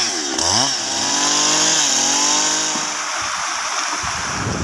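Husqvarna two-stroke chainsaw ripping lengthwise along a bayur log. The engine speed rises and falls a few times, then the saw runs fairly steadily under load; its pitch fades after about three seconds.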